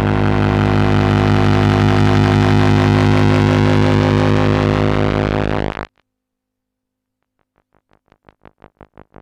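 Electronic synthesizer music: a loud, steady drone with many overtones that cuts off suddenly about six seconds in. After a moment of silence, a fast pulsing synth tone at about five pulses a second fades in near the end.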